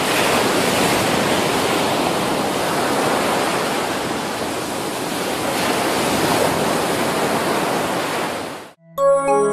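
Surf washing and breaking on a shore, a steady rush of wave noise that cuts off abruptly near the end. Music begins right after.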